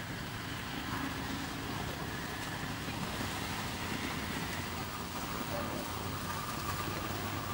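Steady outdoor background noise: an even low rumble with a hiss over it, with no distinct calls or impacts.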